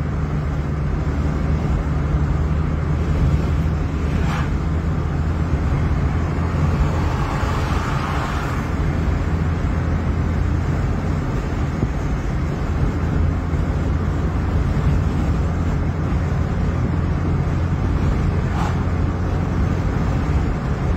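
Car driving at road speed heard from inside: a steady engine drone with tyre and road noise, swelling briefly about eight seconds in.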